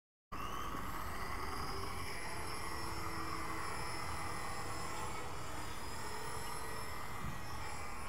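Walkera 4F180 fixed-pitch electric RC helicopter whining steadily as it lifts off the street and flies, the high motor and rotor tone wavering slightly in pitch, over a low rumble.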